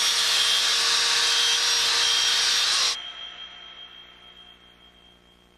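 A loud, steady rushing hiss that cuts off abruptly about three seconds in, leaving a faint high thin tone that fades away.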